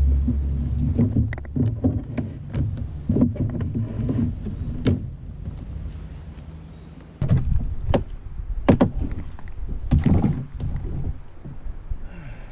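Irregular knocks and clunks of gear and paddle against a kayak, over a low rumble; a steady low hum underlies the first half and stops about seven seconds in.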